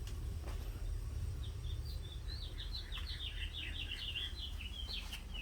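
A bird singing a fast run of short, high chirping notes, starting about a second and a half in, over a steady low rumble.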